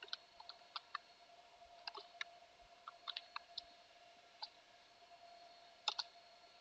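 Faint computer keyboard keystrokes typing a command: scattered clicks, several a second at first, then sparser, with a quick pair near the end. A faint steady hum runs underneath.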